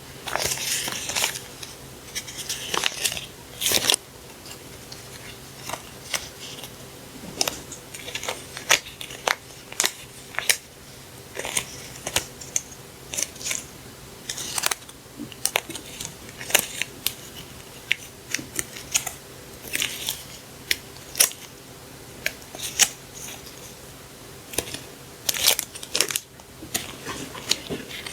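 Paper and plastic packaging of stationery being handled and unwrapped: irregular crisp clicks, taps and short crinkly rustles, with small clusters about a second in, around three seconds, around twenty seconds and near twenty-six seconds, over a faint steady low hum.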